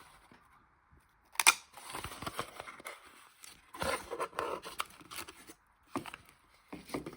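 Packaging rustling and crinkling in several short bursts as cards and items are handled, with a sharper crackle about one and a half seconds in.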